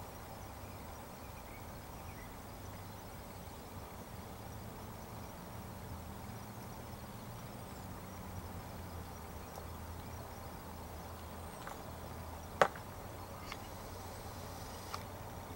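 A crow pecking at its food right beside the microphone: a few sharp taps of its beak, one much louder about three-quarters of the way through, over a faint steady low hum.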